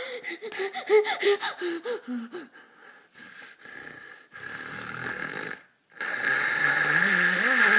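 A child making silly vocal noises: a quick string of short pitched grunts, then two long rasping, breathy sounds, the second one louder and longer near the end.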